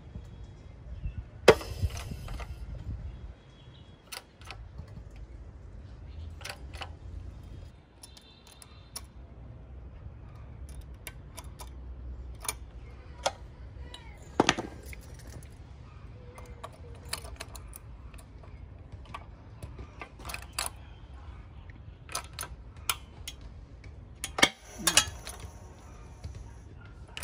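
Irregular metallic clicks, clinks and taps from steel parts and hand tools being handled. A few sharper knocks stand out, about a second and a half in, midway and near the end.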